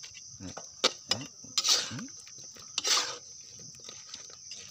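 Metal tongs scraping and clanking against a wok while chicken is stir-fried, with a few sharp scrapes, the loudest just under two seconds in and again about three seconds in. A steady high chirring of crickets runs underneath.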